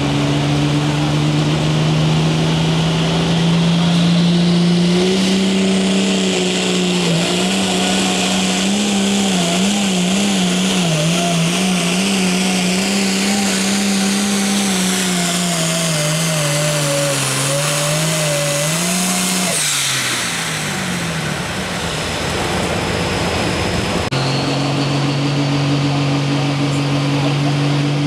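Limited Pro Stock pulling tractor's 466-cubic-inch turbocharged diesel at full throttle down the track, its note wavering up and down under load with a high whine above it. About twenty seconds in the throttle is let off and the engine note drops away. A few seconds later a tractor engine is heard running steadily again.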